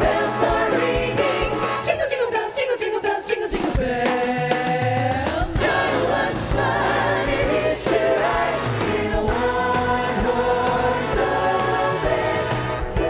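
A choir singing with instrumental accompaniment: several voices in harmony over a steady bass line and regular percussion, with a falling vocal run about two seconds in.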